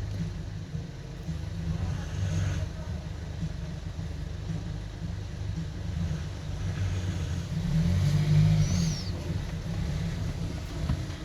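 Low, steady rumble of passing road traffic that swells and fades. About eight and a half seconds in there is a short high squeal that rises and falls.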